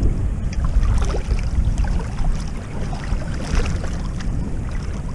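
Wind buffeting the microphone as a steady low rumble, with scattered light splashes and clicks of someone wading in ankle-deep seawater.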